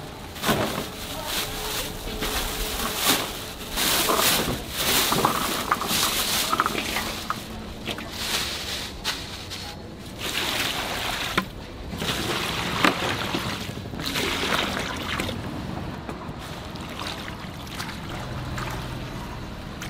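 Water running and splashing into a metal bowl of chopped Chinese kale, the leaves being sloshed about as they are rinsed, in uneven bursts that ease off near the end.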